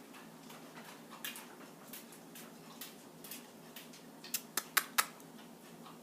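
A parrot making short clicking, smacking sounds: a few faint ticks, then four sharp clicks in quick succession a little past the middle.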